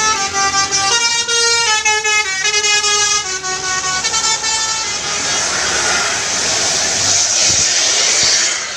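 A tourist bus's telolet 'basuri' multi-tone air horn playing a melody of quick stepping notes for the first few seconds, followed by a few seconds of loud rushing noise without tune.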